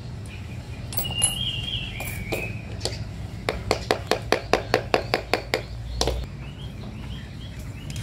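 Quick metallic clicking as a thin steel rod carrying a small metal bird leg ring is tapped against a tile floor: a few taps early on, then a fast run of about a dozen clicks in the middle. Small birds chirp briefly about a second in.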